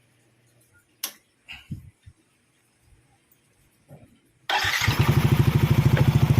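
A few faint clicks and knocks, then about four and a half seconds in the Yamaha NMAX's single-cylinder scooter engine starts and settles into a steady, evenly pulsing idle. This is its first start after an engine overhaul.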